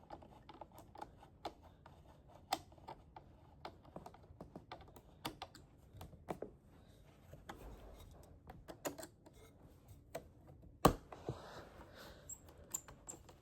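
Irregular light clicks and taps of computer parts and screws being handled, with one sharp knock about eleven seconds in.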